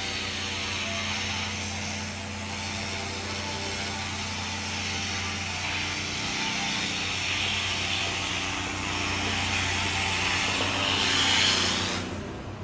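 Steady mechanical hum with a loud hiss over it, swelling near the end and then dropping off sharply.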